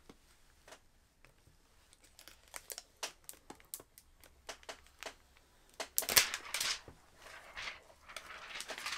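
Thin clear plastic protective sheet being peeled off a laptop's screen: a run of quick crackling ticks, then louder crinkling rustles in the last few seconds.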